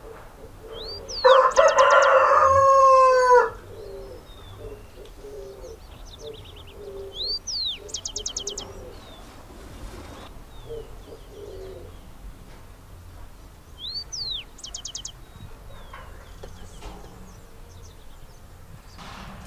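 A rooster crows once, loud and drawn out, about a second in, its call falling away at the end. A small bird's short call with a rapid trill repeats now and then.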